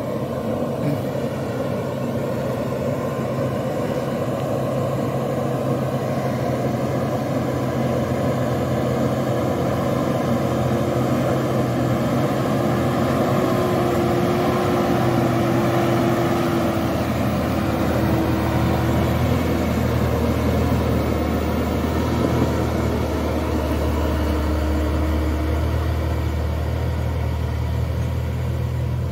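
Diesel engine of a loaded Hino Euro 4 truck pulling up a dirt incline, a steady low drone as it approaches and passes. A deeper rumble comes in a little past halfway as it passes and drives away.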